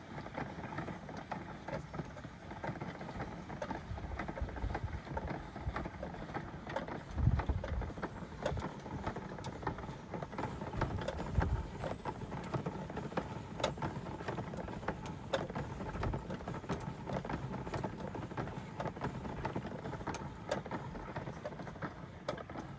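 Hand-cranked portable washing machine being turned to agitate a load in rinse water: an uneven churning from the drum with frequent small clicks and rattles from the crank mechanism, and a couple of brief low rumbles.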